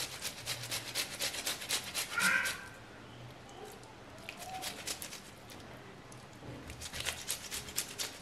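Tomato being grated by hand on a flat metal grater over a glass bowl: quick rhythmic rasping strokes, several a second. They pause midway and start again near the end, with a brief high squeak about two seconds in.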